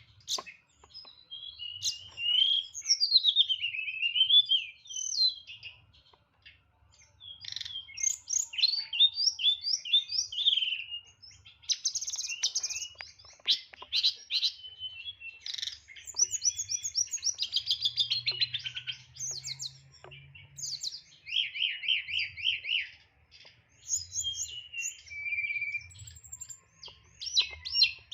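A pied bushchat (tledekan) sings a loud, varied song of short phrases. It moves through quick sharp notes, rapid runs of repeated notes and a buzzy trill, packed with fills mimicked from other birds, with brief pauses between bouts.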